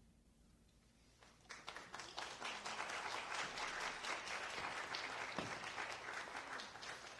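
Audience applause, beginning about a second in after a brief quiet as the concert band's final chord dies away, then carrying on as a dense, even clapping that thins a little near the end.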